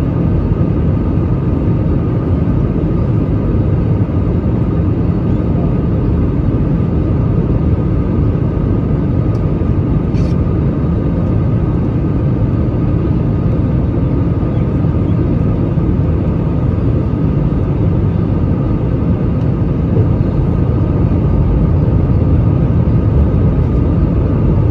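Airbus A320 cabin noise on the landing approach, heard inside the cabin over the wing: a steady deep rumble of engine and airflow with a few faint steady tones above it. It grows slightly louder about twenty seconds in.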